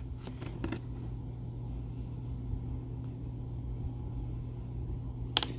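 A steady low hum with a few faint clicks of a hard plastic Beyblade stadium being handled, some near the start and a sharper one near the end.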